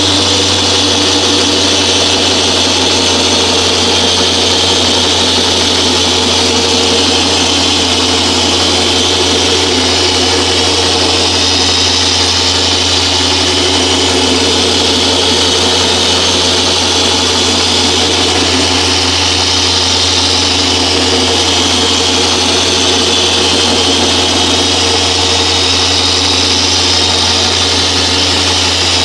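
Electric car paint polisher running steadily at speed 3 with a constant hum, buffing scratch remover into the paint with a foam pad.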